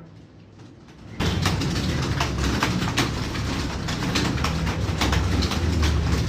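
Many computer keyboards being typed on at once by a room of students in a timed typing test, starting together about a second in as a dense, continuous clatter of keystrokes.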